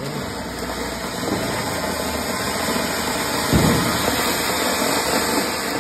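Ground fountain firework (anar, a flowerpot cracker) spraying sparks with a steady, loud hiss, with one dull thump about three and a half seconds in.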